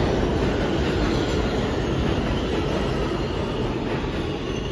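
A New York City subway G train running through an underground station at speed: a steady rumble and rattle of wheels on rail that slowly fades toward the end as the last cars pass.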